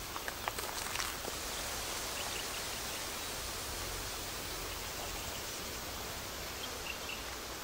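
Steady outdoor ambience in a forest: an even hiss with a few light clicks in the first second or so, and a couple of faint, short, high chirps.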